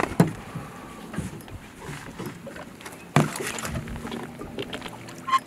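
Scattered knocks and clunks on an aluminium boat, the loudest about three seconds in, as a landing net is picked up and swung out, with light splashing from a hooked fish at the surface beside the hull.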